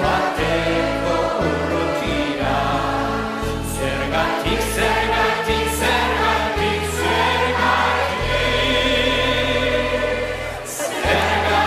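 Background music: a song with singing over a steady bass line.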